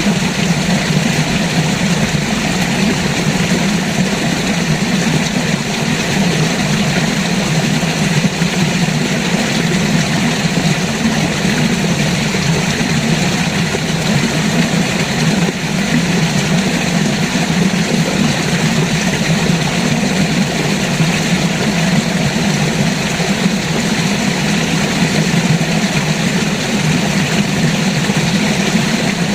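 A river's water rushing steadily, a continuous loud roar with a deep low rumble and no breaks.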